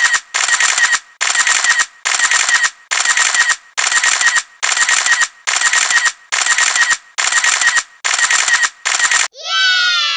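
Electronic sound effect: a noisy burst repeated in a steady rhythm, about three every two seconds, then a falling electronic tone near the end.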